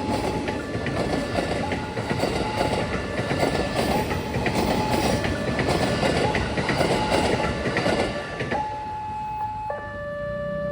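A train passes over the level crossing with a heavy rumble and rapid wheel clatter on the rails, while the crossing gate's electronic alarm repeats a steady tone through it. About eight and a half seconds in, the train noise cuts away and the alarm is heard clearly, stepping between a higher and a lower tone.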